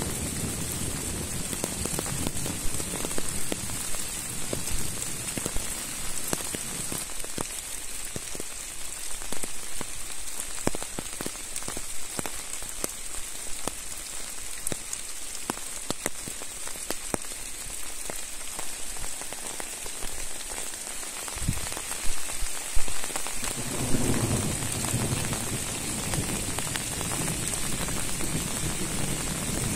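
Steady rain with many separate drop hits, a few louder ones a little over 20 seconds in. A low rumble comes in near the start and again about 24 seconds in.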